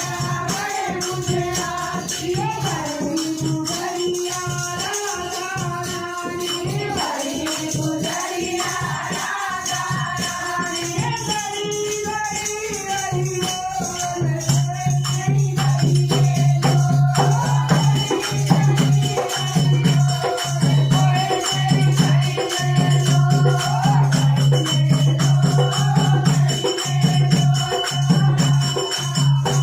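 Hindu devotional bhajan to Krishna: a woman sings the melody over shaken rattle and tambourine-like jingles. About halfway in, a loud low note comes in and pulses in a steady rhythm.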